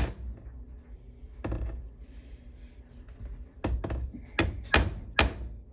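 Hammer tapping at a small dent in a microwave's sheet-metal casing: about six sharp taps, spaced out at first and then quicker near the end, several leaving a brief high metallic ring.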